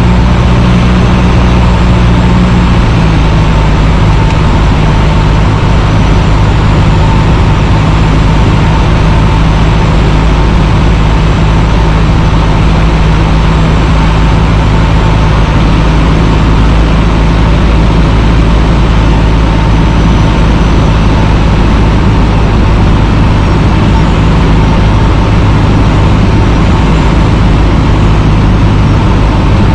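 Cessna 150's Continental O-200 four-cylinder engine and propeller running steadily and loudly, with a thin steady whine above the drone. The engine note drops slightly about three seconds in.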